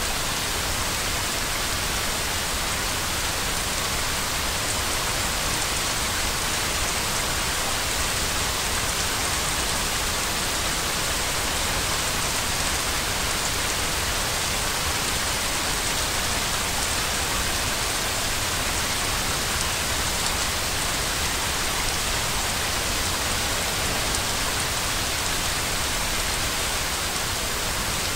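Steady white noise for lulling a baby to sleep: an even, unbroken hiss, strongest in the upper middle, with a faint low rumble beneath.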